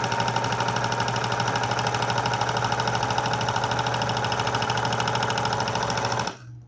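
Elan Lock L5 five-thread serger running fast with its foot pedal pressed down: a steady, rapid, even stitching clatter that stops abruptly near the end.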